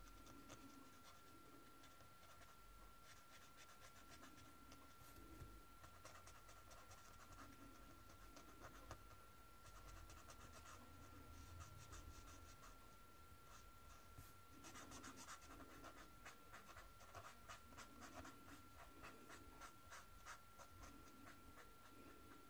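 Faint scratching of a brush marker's tip stroked back and forth on kraft paper as ink is blended out, in many short strokes that grow busier about two-thirds of the way in. A faint steady high tone runs underneath.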